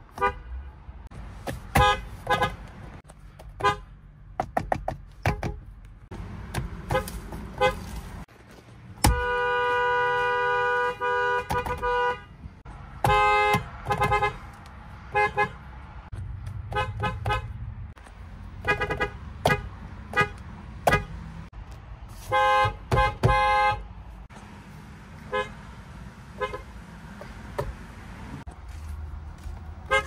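Lexus car horns honked by pressing the steering-wheel pad, in a run of short toots with one long blast of about three seconds about nine seconds in. Several different Lexus models are sounded one after another.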